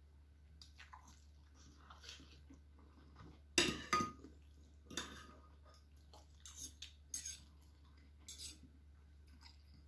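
Metal spoon and fork clinking and scraping against a ceramic dish while scooping food: a scatter of sharp clinks, the loudest pair about three and a half to four seconds in, one of them ringing briefly.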